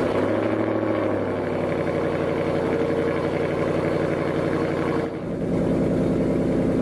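BMW engine idling steadily with a whistle that sounds like a slipping belt, the sign of a torn PCV valve diaphragm in the valve cover.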